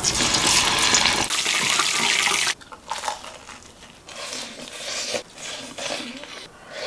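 Flour-coated chicken leg going into hot oil: loud frying sizzle that cuts off abruptly about two and a half seconds in. Then quieter crunching as the crisp fried crust is bitten and chewed, in several short bursts.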